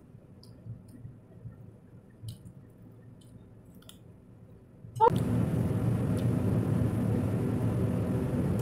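Faint chewing and small wet clicks of a person eating with her fingers. About five seconds in, a loud, steady low noise with a hiss above it starts suddenly and carries on.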